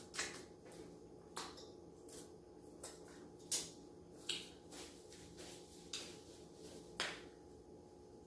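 Close-miked eating sounds: a string of short, crisp mouth clicks and smacks of chewing, irregularly spaced, about a dozen, the loudest about three and a half and seven seconds in.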